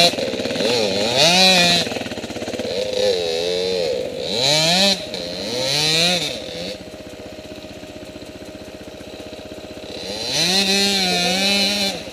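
Dirt-bike engine revving up and down in short bursts. It drops to a quieter steady running for a few seconds past the middle and revs again near the end.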